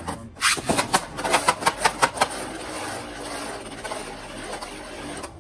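Two Beyblade Burst spinning tops (Brave Valkyrie and Infinite Achilles) in a plastic stadium: a quick run of sharp plastic clicks and clacks as they skitter and knock in the bowl. Then a steady whir as they spin on the stadium floor.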